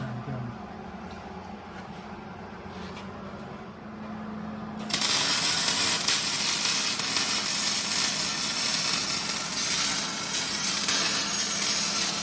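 A power tool starts suddenly about five seconds in and runs steadily with a loud, even hiss, over a low hum.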